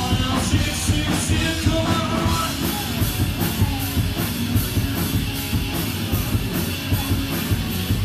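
Live rock band playing loudly: electric guitars over drums keeping a steady beat, heard from among the audience in a hall.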